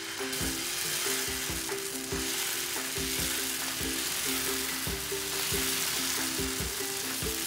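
Jackfruit dosa batter sizzling on a hot oiled nonstick tawa as a steel ladle spreads it in circles, over background music with a steady beat.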